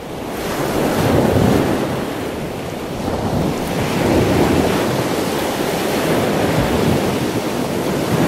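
Ocean surf washing over a sandy shore: a steady rush of breaking water that swells and eases in slow surges.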